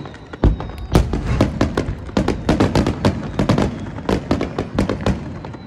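Fireworks display: aerial shells bursting in rapid succession, a dense run of bangs and crackles starting about half a second in.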